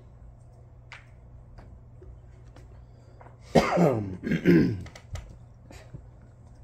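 Two short, loud vocal sounds from a person about three and a half seconds in, each falling in pitch, over quiet room tone with a low steady hum and a few faint clicks.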